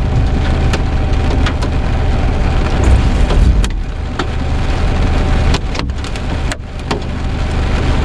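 Hailstones, dime to quarter size, striking a car, heard from inside as sharp, irregular knocks, a handful of them spread across the moment, over a steady low rumble.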